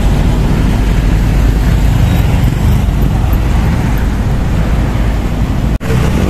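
Steady road traffic noise with a heavy low rumble, cut off by a sudden brief dropout near the end.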